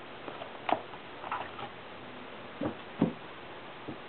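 Plastic clicks and knocks of a black MacBook's battery being unlatched and lifted out of its bay: about half a dozen separate taps, the loudest about three seconds in.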